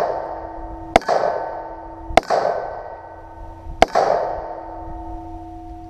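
Three gunshots, the second and third about a second and a half after the one before, each followed by a struck steel target ringing with a long, slowly fading metallic tone.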